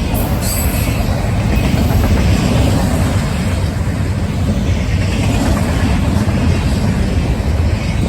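Freight train rolling past close by: a steady, loud rumble of wheels on the rails, with a little clatter and squeal from the wheels.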